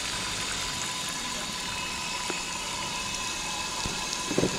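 Water running from a fish-cleaning-table tap and splashing onto the stainless-steel tabletop and a large flathead, a steady hiss with a faint steady tone underneath.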